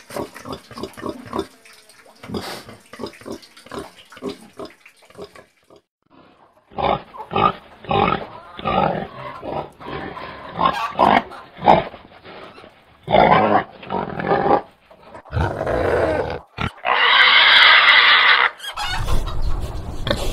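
Domestic pig grunting: a quick run of short grunts, then louder, irregular grunts, and one longer, louder harsh call lasting about a second and a half near the end.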